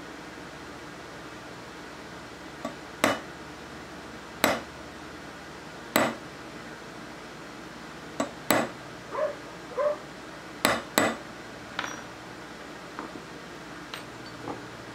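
A hammer tapping a steel pin punch to drive a pin out of an Ithaca Model 49-S rifle's receiver: sharp metallic strikes, the first three about a second and a half apart, then two quicker pairs, followed by a few lighter clinks near the end.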